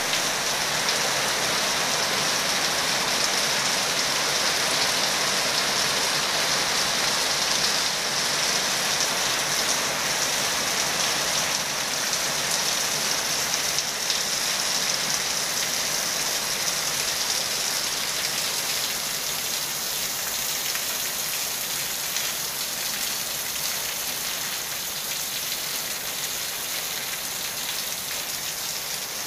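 Steady downpour of rain splashing onto a swimming pool, a paved pool deck and a tiled terrace: a dense, even hiss of drops that eases a little in the second half.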